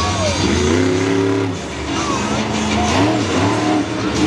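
Monster truck's supercharged V8 revving in bursts as it drives. It climbs to a high rev about half a second in, drops about a second and a half in, and climbs again near three seconds, with crowd noise underneath.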